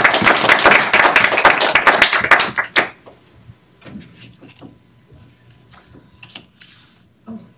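Small audience applauding in a room, the clapping dying away about three seconds in, followed by a few faint scattered knocks.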